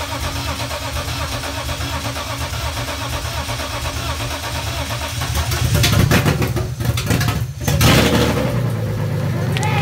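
Freshly rebuilt BMW S50 straight-six of a 1995 E36 M3 on its first start, with no exhaust fitted. It turns over steadily, then about five and a half seconds in it gets much louder and runs unevenly for a couple of seconds before settling into a loud, steady run. A few sharp clicks come near the end.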